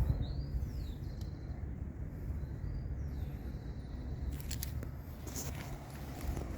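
Bajaj NS200 single-cylinder engine idling steadily through an aftermarket KTM 390 Adventure exhaust silencer, a low even rumble. Faint bird chirps sound over it.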